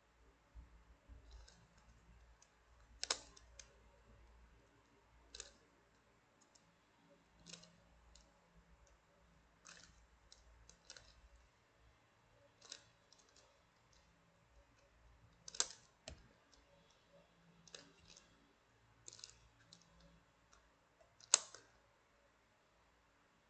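Faint, irregular clicks of the plastic pieces of a YongJun Yeet ball twisty puzzle being turned by hand, with a few sharper snaps, the loudest near the end.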